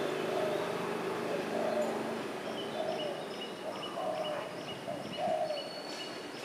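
Spotted doves cooing: a run of short, low coos, about one or two a second, with thin high chirps repeating behind them.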